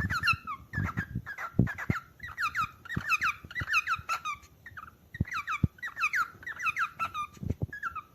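Cockatiel calling: a rapid series of short, high chirping whistles that dip and rise in pitch, coming in clusters with brief pauses, with a few low thumps underneath.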